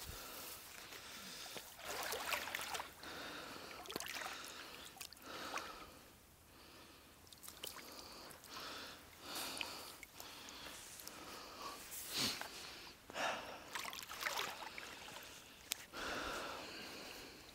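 Water sloshing and splashing in irregular swishes as a hunter moves through shallow marsh water and lifts a shot duck out of it, with a few sharp knocks.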